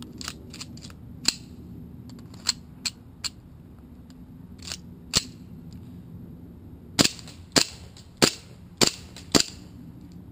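Gas-powered airsoft race pistol firing single shots: several sharp cracks spread through the first half, then five louder shots in quick succession, about half a second apart, in the last third.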